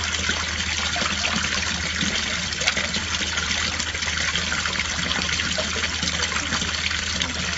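Water from a garden water feature spilling over its ledge and splashing steadily into the pool below, with a low steady hum underneath.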